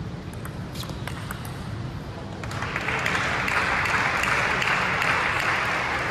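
Table tennis rally: the ball clicks off bats and table in a quick irregular run of knocks. About two and a half seconds in, applause starts as the game ends 11–5 and keeps going.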